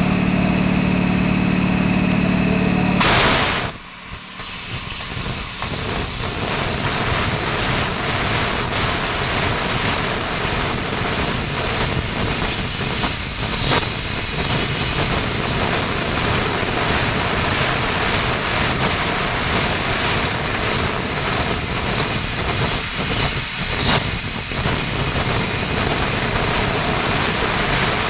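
Bodor 1.5 kW fiber laser cutter cutting 1.2 mm galvanized iron sheet in a flying (runaway scan) cut: a loud, steady hiss of assist gas at the cutting head. A steady low hum sounds in the first three seconds, before the hiss starts.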